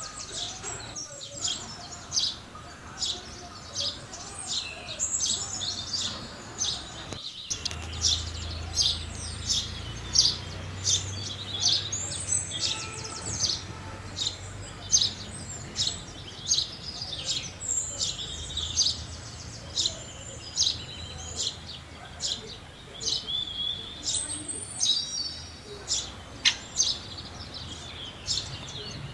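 A group of house sparrows chirping in a constant chatter, with several short chirps a second.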